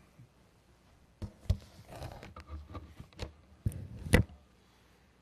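Handling noise at a lectern: a run of sharp knocks and thumps with some rustling as a book is set down and handled there. The two loudest knocks come about a second and a half in and near the end.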